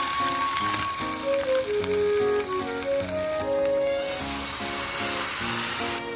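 Food sizzling as it fries, a steady hiss that cuts off sharply near the end, under background music with a melody.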